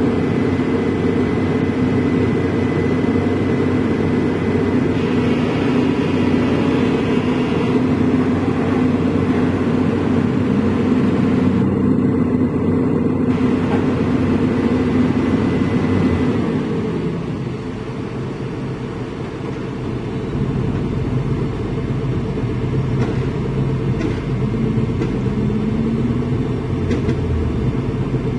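Volvo EC210B excavator's diesel engine running hard under hydraulic load, with a thin steady high whine over it. About two-thirds of the way through the engine eases off and the whine stops, leaving a lower diesel rumble.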